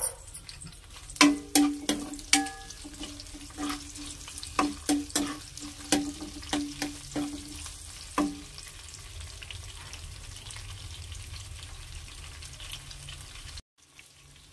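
Dried red chillies, garlic cloves and coriander and cumin seeds sizzling in hot oil in a nonstick frying pan. For the first eight seconds or so a spatula stirs them, knocking and scraping against the pan with short ringing clinks. After that the sizzle goes on alone and cuts off suddenly near the end.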